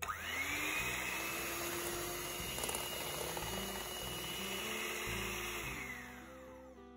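Electric hand mixer beating a runny batter. It starts with a quickly rising whine, runs steadily, and winds down with a falling whine near the end.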